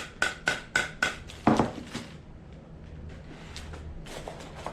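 Rapid tapping on a hollow plastic security-camera housing, about four light taps a second with a short hollow ring, showing it sounds plasticky. One harder knock follows about a second and a half in, then faint handling clicks.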